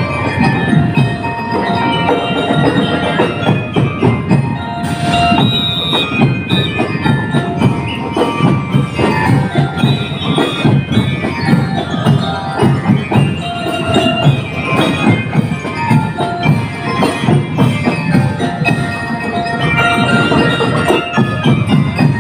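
Drum and lyre corps playing a marching tune: metal bell lyres ring out the melody in short notes over a steady beat of marching drums.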